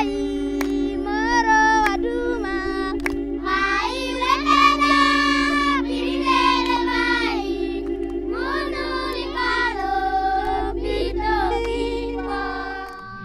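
Children singing together over a steady held backing note, with a few hand claps in the first couple of seconds.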